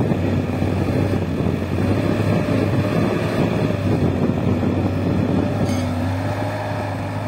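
Bobcat S130 skid-steer loader's diesel engine running steadily under load while it scoops soil into its bucket and lifts it, with a held tone that wavers slightly in pitch over the engine hum.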